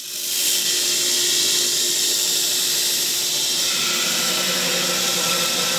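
Belt grinder grinding down weld beads on a mild steel forging die: abrasive belt on steel, a steady loud grinding noise with a motor hum underneath, setting in abruptly at the start.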